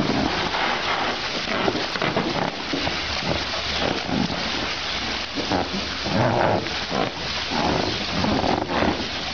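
Water splashing and sloshing in a shallow inflatable pool as baby elephants roll and kick about in it, over a steady rain-like rushing.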